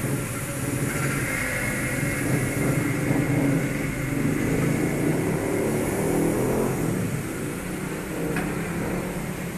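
A vehicle engine running steadily, louder through the middle, over a steady background hiss. There is a single light click near the end.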